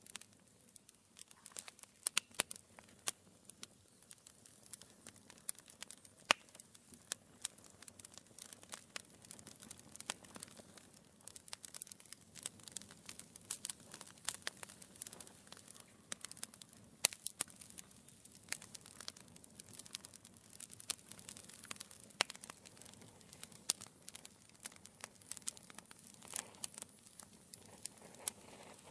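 Wood fire burning in a fireplace, with logs crackling and popping irregularly over a soft steady hiss.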